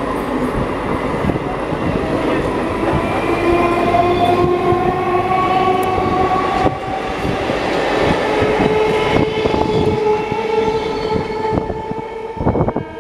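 Electric multiple-unit local train running past, its traction motors whining in a pitch that rises and then holds steady, over wheel rumble and clatter on the rails. The sound fades near the end, with a few sharp clacks.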